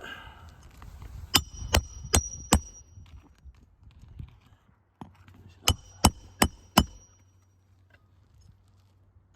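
Hammer driving roofing nails through a metal nail-driving tool under a shingle: two runs of four quick, sharp whacks a few seconds apart, each strike ringing with a metallic ping.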